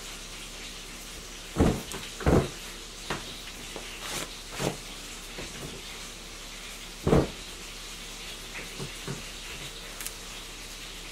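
Kitchen handling noises: a few short, dull knocks, the loudest about one and a half, two and a half and seven seconds in, over a faint steady hiss.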